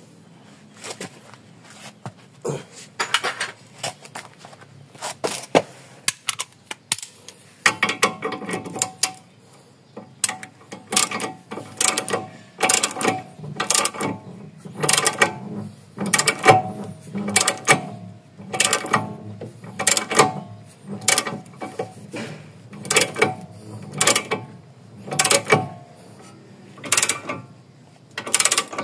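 Ratchet wrench clicking in repeated strokes, about one a second once it gets going, as it winds in the bolt of a ball joint separator to press the ball joint out of the steering knuckle.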